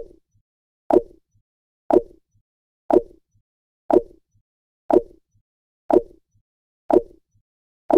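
A short, hollow pop sound effect repeated once every second, each one dying away quickly, ticking off the seconds of a counting timer.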